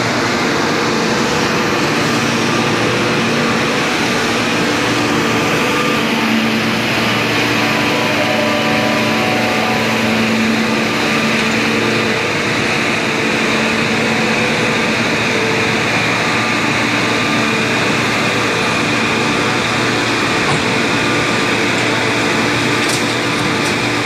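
Dual-fuel bogie hearth forging furnace firing, heard as a steady, loud drone with a few faint hums through it.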